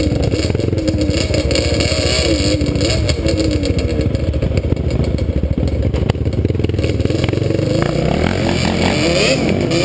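Quad (ATV) engine running under load, its pitch wavering with the throttle and rising in a rev about two-thirds of the way through.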